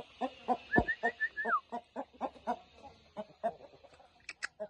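Aseel chickens clucking: a steady run of short low clucks, about four a second, with a quick series of higher chirps about a second in.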